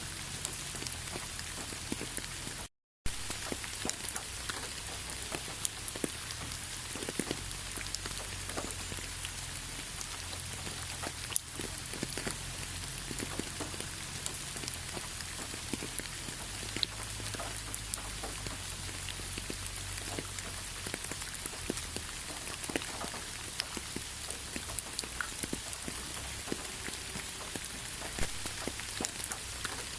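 Steady rain falling, an even hiss dotted with the taps of single drops. The sound cuts out completely for a moment about three seconds in.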